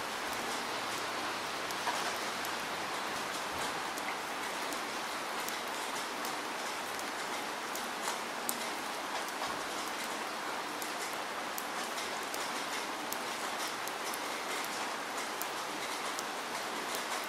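Steady rain falling, an even hiss dotted with many small sharp drop ticks.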